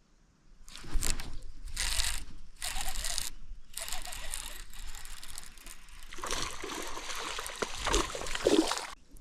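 Water splashing and gurgling mixed with a rattling, ratchet-like mechanical clicking. It comes as short bursts about a second apart, then runs on continuously for the last three seconds or so.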